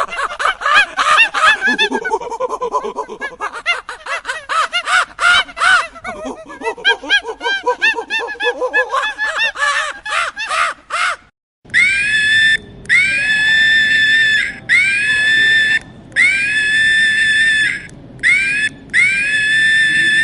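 Monkeys calling in rapid, overlapping chattering and screeching. After a brief cut a little past halfway, long high-pitched shrieks follow, each lasting one to two seconds with short pauses between.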